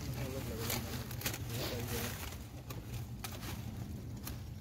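A curved pruning knife cutting through woody tea-bush stems: about half a dozen sharp, scattered clicks over a steady low rumble.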